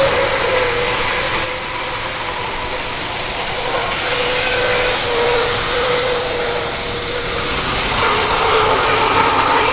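TOMIX N-gauge motor power unit in a 115-series model train running, its motor giving a mosquito-like whine that wavers slightly in pitch over a steady hiss; the whine is the unit's abnormal noise. About eight seconds in the whine grows louder and higher.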